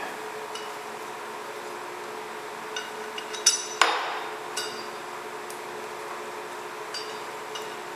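Small steel screws and washers clinking and clicking as they are handled on a workbench, with a few scattered light clicks and two sharper, ringing clinks about three and a half seconds in. A steady low machine hum runs underneath.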